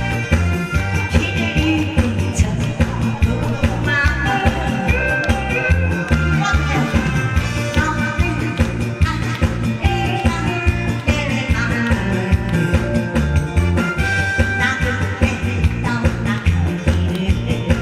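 Upbeat music with a steady, even beat in the bass and a melody line over it, with some singing.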